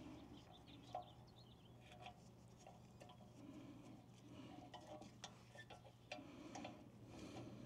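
Faint, scattered small metal clicks and taps as the rear parking brake shoe hardware on a Land Rover LR4/LR3 is handled and fitted at the hub.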